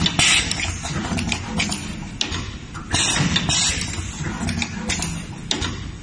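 Automatic multi-wire stripping, twisting and tin-dipping machine running through its cycle: a steady hum with repeated clicks and clacks, and a louder rush of noise about every three seconds.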